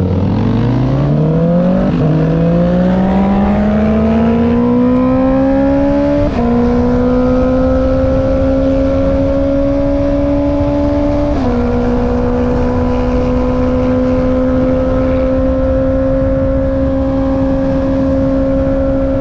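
Honda CB650R's inline-four engine through an Akrapovic exhaust, accelerating hard with the pitch climbing, dipping at upshifts about two, six and eleven seconds in, then cruising at a steady pitch.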